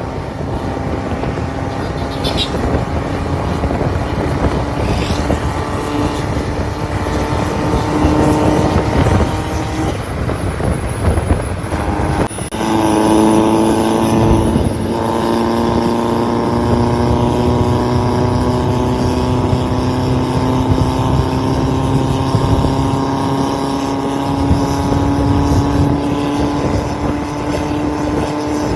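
Diesel vehicle engine running steadily under load. About twelve seconds in, the engine note breaks off briefly and comes back louder at a new pitch, like a gear change.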